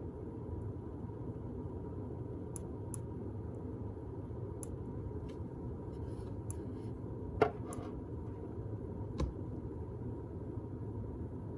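be quiet! Dark Power Pro 12 1500 W PC power supply clicking irregularly, like a relay opening and closing, about eight sharp clicks over a steady low hum. Two of the clicks are louder, one past the middle and another about two seconds later. The owner does not think the clicking rate is normal for this unit.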